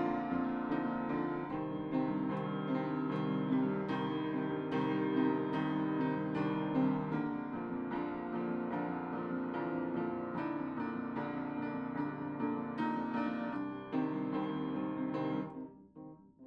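Piano music: many ringing, held notes with new notes struck every second or so. About a second before the end the full sound drops away sharply, leaving softer, sparser notes.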